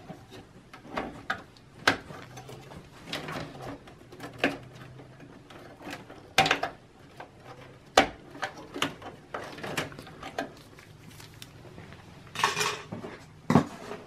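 Scattered sharp clicks, knocks and light plastic rattles of hands working at the memory slots inside an open desktop tower case: DIMM slot retention clips and memory modules being handled, with a few louder snaps among them.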